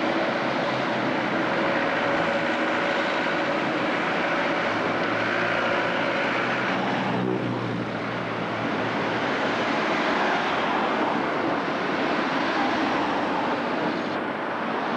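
Busy street traffic: car and minibus engines running, with tyre noise on the road, in a steady drone. There is a brief break about seven seconds in.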